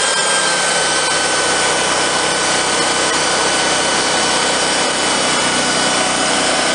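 Wood-Mizer portable band sawmill cutting a pine log: the engine-driven band blade runs steadily through the wood with a high whine that sags slightly in pitch.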